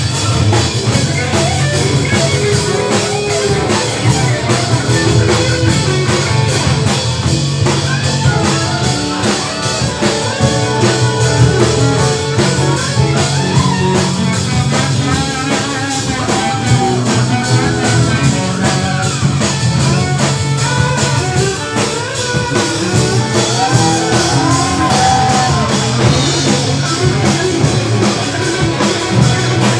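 Live jazz-rock fusion band playing at full volume: drum kit, electric bass, electric guitar, keyboards and electric violin. Over the steady bass and drums, a lead line bends and wavers in pitch through the middle of the passage.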